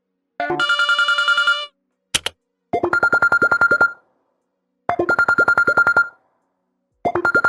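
Phone ringtone made of fast-trilling electronic tones, sounding in rings of about a second. A brighter trill comes first and a short pop about two seconds in, then a ring at one steady pitch repeats three times about two seconds apart.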